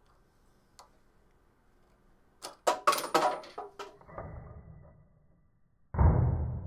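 A small hand-held 3D-printed catapult fired with a quarter: a light click, then a quick run of sharp clacks and knocks lasting about a second and a half. About six seconds in comes a deep, muffled thud.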